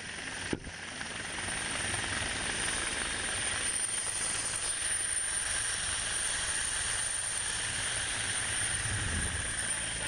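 Hovering helicopter's rotor and engine noise heard up close from the rescue hoist, a steady heavy wash, with a sharp click about half a second in.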